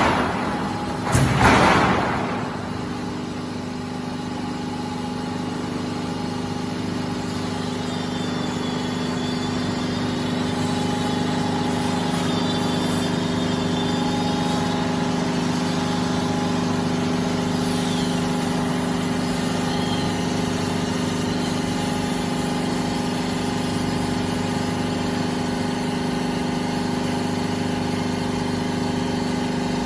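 Silo corrugated sheet roll forming machine running steadily, a continuous hum with several held low tones as a steel sheet is fed through the forming rollers. A loud clank about a second in, and a faint wavering high squeal in the middle.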